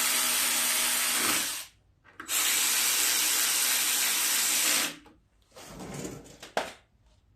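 Power driver running in two steady bursts of about two and a half seconds each, driving in the 7 mm screws of a mower engine's top cover. Light clicks and handling of parts follow near the end.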